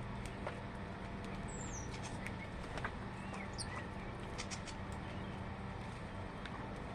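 Small birds giving scattered short high chirps and clicks, with two quick high falling whistles, over a steady low hum.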